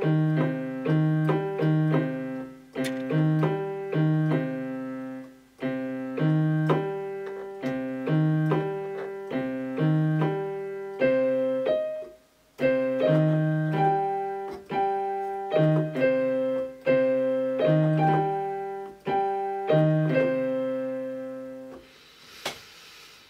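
Yamaha YPT-255 portable keyboard played in C minor: a repeating pattern of broken chords over low bass notes, each note fading after it is struck. The playing stops about 22 seconds in and the last chord dies away, followed by a short breathy rustle.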